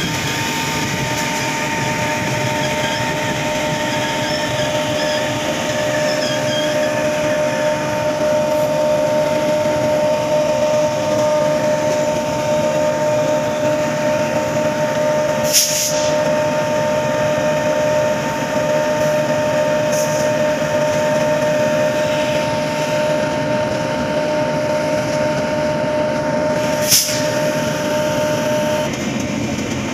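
Moving train's steady running noise with a constant two-note whine that cuts off near the end, and two sharp clicks, one about halfway through and one near the end.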